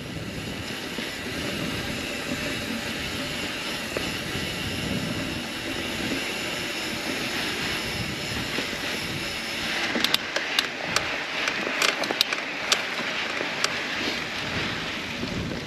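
Mountain bike riding along a dirt trail: steady rush of wind on the microphone and tyre noise. From about ten seconds in comes a run of sharp clicks and rattles from the bike.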